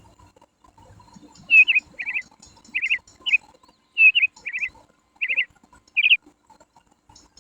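A small bird chirping: a string of short, high chirps, often in quick pairs, over about five seconds.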